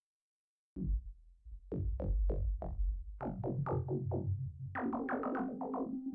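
Dave Smith Instruments Prophet 6 analog polyphonic synthesizer, played dry with no external effects, starting a new preset about three-quarters of a second in. It plays a run of short, plucked notes at about three a second over a deep bass. A held bass note joins about three seconds in, and a higher held note about five seconds in.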